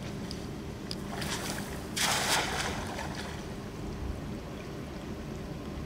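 Hand-thrown cast net landing on the water: a short hissing splash about two seconds in, fading out by about three seconds.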